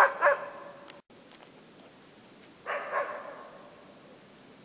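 A distant dog barking in alarm at a moose: two quick barks at the start, then a longer bark about three seconds in.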